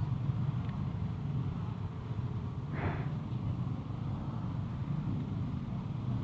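Scooter ridden in slow traffic: steady low engine and road rumble, with a brief hiss about three seconds in.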